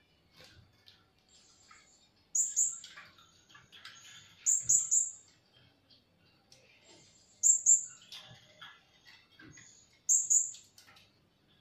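Caged blue-crowned hanging parrots (serindit) calling: four bursts of two or three shrill, high-pitched notes about every two and a half seconds, with softer scratchy twittering in between.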